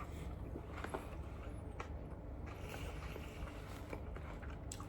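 Quiet room tone: a low steady hum with a few faint clicks.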